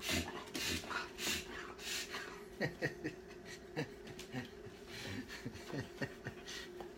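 A dog panting in short, quick breaths, loudest in the first two seconds and softer after.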